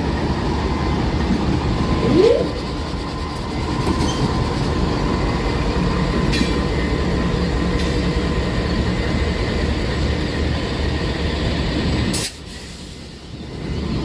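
Train running on the track close by with a steady low rumble, a short rising squeal about two seconds in. Near the end the sound cuts off sharply to a much quieter level, then builds again.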